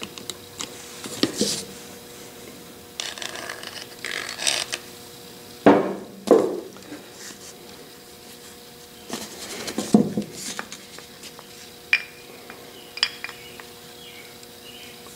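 Cast-iron parts of a lathe compound rest being handled and fitted together by hand: scattered metal clinks and scrapes, with a few louder clunks around six seconds in and again near ten seconds.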